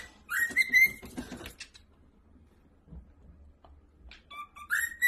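Cockatiel whistling: shrill whistled phrases that step up from a lower note to a held higher one, near the start and again near the end, with faint scuffling in between.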